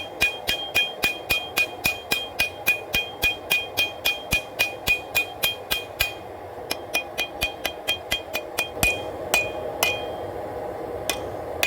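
Hammer blows on hot W-2 steel over an anvil while forging a knife blade's edge: a quick, even rhythm of about three or four strikes a second, each with a ringing note. After a short pause about six seconds in, lighter and more widely spaced blows follow.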